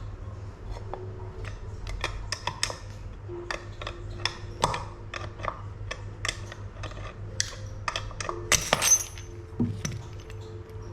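Small metal parts and tools clinking and tapping at irregular moments, with a louder clatter about eight and a half seconds in, over a steady low hum.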